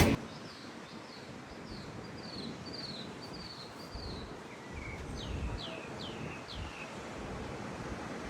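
A bird calling over steady outdoor background noise: a quick series of short, high, falling chirps, then four longer notes that each slide down in pitch.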